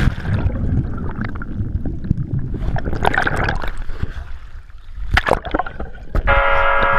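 Water splashing and gurgling as a diver drops into the sea and goes under, with a few louder splashes. A song's bell-like opening comes in near the end.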